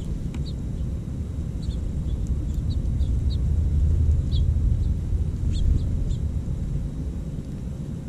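Small songbirds giving short, high chirps, scattered over the first six seconds or so, over a steady low rumble that is the loudest sound.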